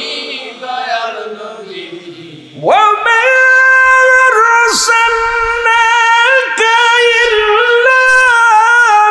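A man singing a Bengali devotional song (naat) about longing for Medina, amplified through a microphone. A softer phrase trails downward, then about three seconds in he breaks into a loud, high, long-held note with small wavering ornaments, broken only by a few brief breaths.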